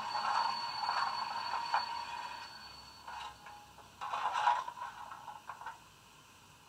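Bachmann Jubilee model steam locomotive's DCC sound decoder playing standing-engine sounds through its small on-board speaker: irregular scraping and clattering over a steady hiss. The loudest clatter comes about four seconds in, and the sound fades toward the end.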